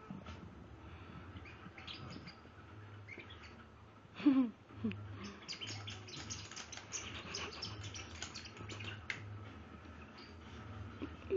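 Squeaky bug toy being chewed by a puppy: one drawn-out squeak falling in pitch about four seconds in, then a quick run of short squeaks and clicks for several seconds.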